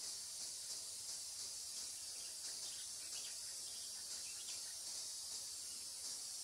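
Steady high-pitched hiss of an insect chorus with a faint pulsing; the elephant and the vehicles are not heard.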